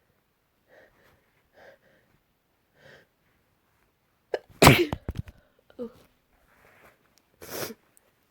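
A person sneezing: a few faint catching breaths build up to a loud sneeze about four and a half seconds in, and a second sneeze follows near the end.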